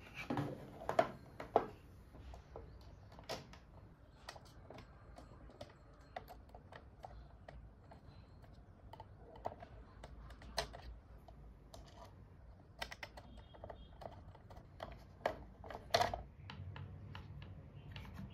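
Light clicks and taps of model turbojet kit parts being handled and fitted together, with a thin metal rod pushed through holes in the casing. The clicks come irregularly, a few louder ones about a second in and again near the end.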